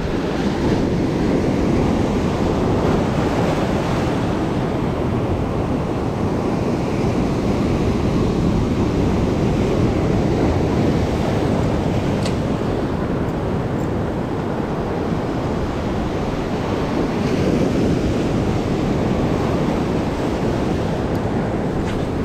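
Sea waves breaking and washing over a rocky reef shore: a steady, loud rush of surf.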